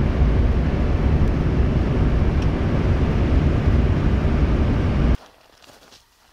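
Steady low rumble of road and wind noise from a vehicle moving at highway speed. It cuts off abruptly about five seconds in, leaving only faint outdoor sound.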